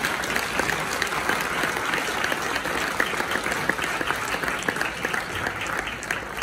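Theatre audience applauding, many hands clapping together in a steady dense patter that eases slightly near the end.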